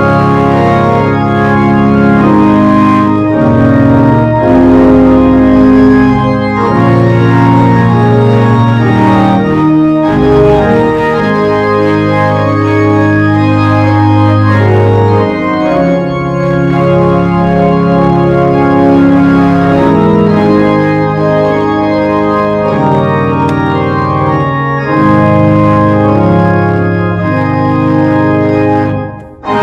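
Organ playing held chords that change every second or two over a deep bass line. The music dips briefly just before the end.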